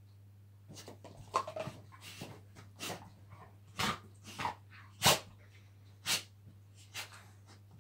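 Golden retriever rolling and wriggling on her back on a rug, making about a dozen short, noisy huffs and rubbing sounds, irregularly spaced, the loudest about five seconds in.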